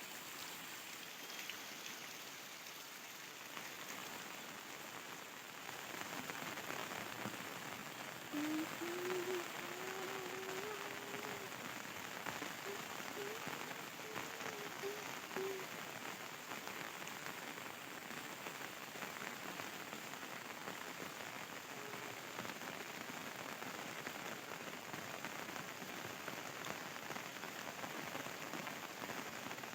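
Steady rain falling, a little heavier from about six seconds in. In the middle a faint wavering pitched call sounds for several seconds.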